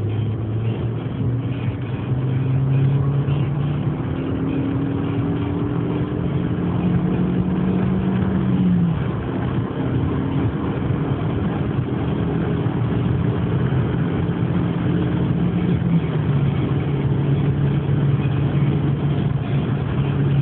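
Audi A3's 1.8-litre turbocharged four-cylinder engine pulling at high speed, heard from inside the cabin over wind and road noise. Its note climbs slowly, then drops in pitch about nine seconds in and again near sixteen seconds.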